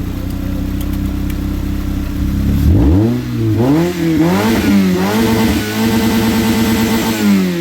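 Toyota car engine idling, then revved in several quick blips about three seconds in, held at higher revs, and easing back down near the end.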